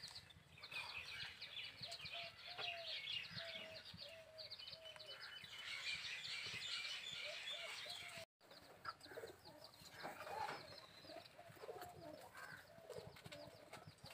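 Birds chirping and twittering, with a run of short, evenly spaced lower calls repeated about twice a second. The sound cuts out for an instant about eight seconds in.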